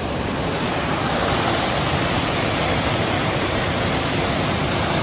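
Waterfall pouring into its pool: a steady rushing of falling water.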